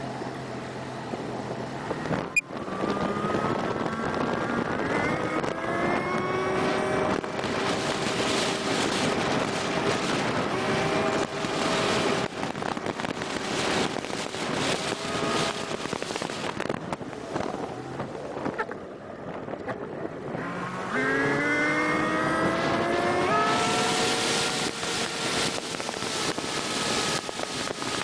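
Mercury Black Max 175 hp V6 two-stroke outboard driving the boat, with wind and water rush. After a sharp click early on, the engine pitch climbs over a few seconds as it accelerates and then holds. Near three-quarters of the way it drops back briefly, then climbs again and holds at speed.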